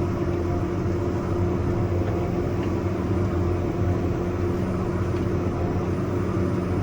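Tractor engine running steadily at an even pitch while the tractor reverses slowly, heard from inside the cab.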